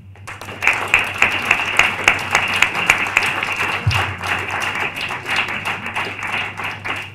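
Audience applauding, a dense clatter of many hands clapping that starts a moment in.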